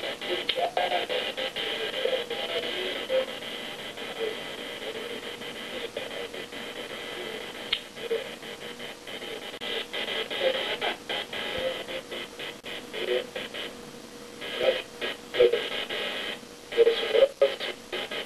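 Electric hair clippers running steadily against a customer's head during a haircut, with irregular small clicks and background voices.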